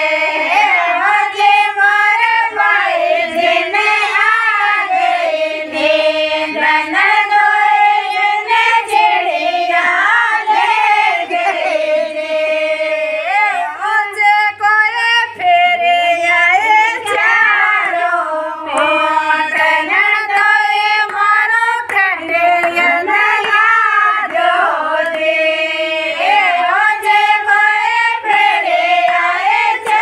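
Group of women singing a Rajasthani folk song (a nandoi geet) together, with melodic voices that rise and fall without a break.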